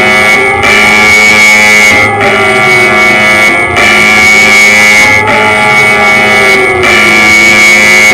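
Emergency alert system alarm: a loud, steady high tone broken by short gaps about every one and a half seconds, over a lower tone that slowly rises and falls like a siren.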